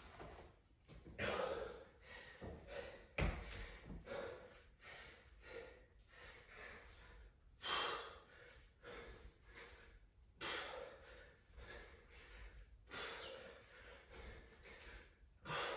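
A man panting hard from exertion during a high-intensity dumbbell snatch workout, with loud exhalations every two to three seconds and a single thump about three seconds in.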